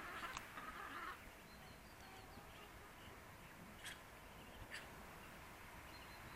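Faint soft calls from farmyard poultry in the first second, then two short sharp clicks a little under a second apart near the middle, over a quiet outdoor background.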